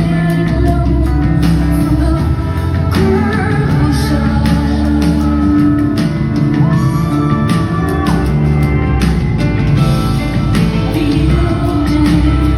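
Live concert performance: a woman singing over a full rock band, with bass and drums.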